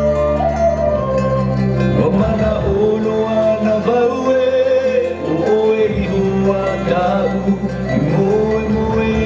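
Music with plucked strings under a wavering, gliding melody line, held over sustained low notes.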